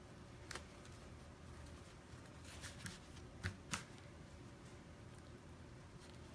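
Faint rustling and a few light clicks of hands smoothing and shifting cotton fabric on a cutting mat, the sharpest pair about three and a half seconds in.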